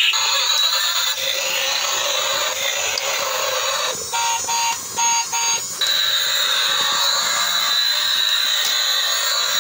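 Battery-powered transforming robot toy car playing its electronic sound effects through a small tinny speaker as it drives: a harsh buzzing noise, a quick run of short beeps a little past the middle, then a steady high-pitched whine.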